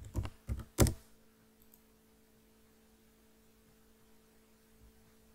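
Four quick clicks from computer input in the first second, the last one loudest, followed by a steady faint electrical hum.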